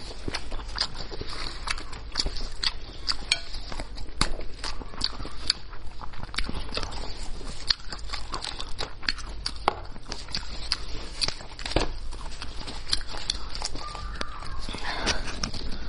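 Close-miked eating sounds: a steady run of irregular wet clicks and smacks of chewing and picking meat off a spicy sheep's head.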